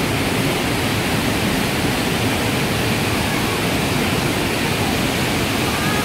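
Mountain gorge stream rushing and splashing down a whitewater cascade over boulders: a loud, steady rush of water without a break.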